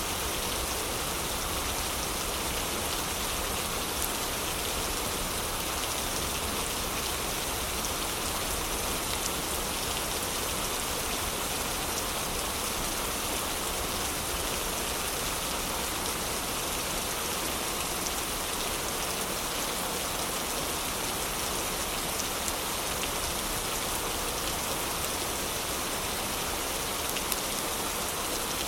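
Heavy rain falling steadily, an even, unbroken hiss of downpour, with a few faint sharp ticks.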